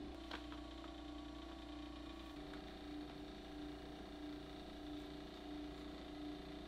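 Steady low hum of a hydraulic leather-cutting (clicker) press, its motor running while the press head is idle. There is one faint tap about a third of a second in.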